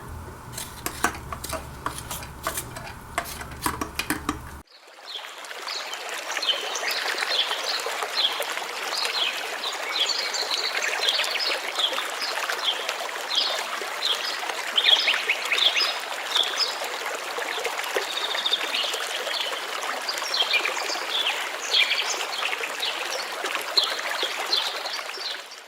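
Running stream water with many small birds chirping and twittering over it, starting abruptly about four and a half seconds in after a few seconds of faint light clicks.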